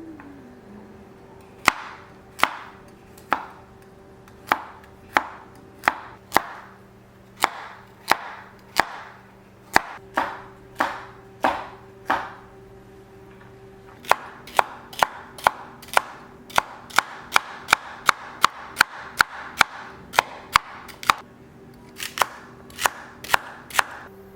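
Kitchen knife chopping on a cutting board: separate chops somewhat under a second apart, a pause of about two seconds halfway, then a quicker run of about two chops a second.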